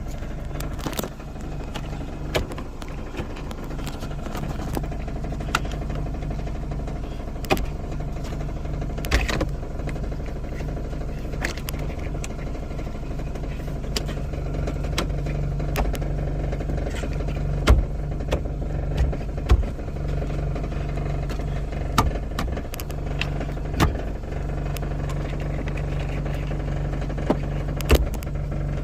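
Scattered clicks, taps and knocks of plastic interior trim and a gauge cable being pushed into the trim grooves, over a steady low vehicle hum.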